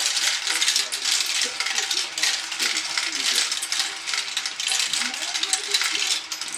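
Marbles rolling down a tall plastic marble run, a dense, continuous rattle of small clicks and clacks as they roll through the plastic track pieces and tubes.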